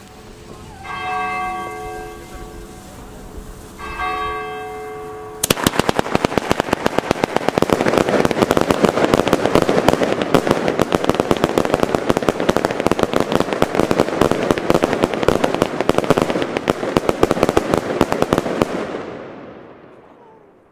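A church bell strikes twice, ringing on after each stroke. About five seconds in, an Argento Rapid Thunder firework cake starts firing a fast, unbroken run of salute bangs, many a second, for some thirteen seconds before dying away.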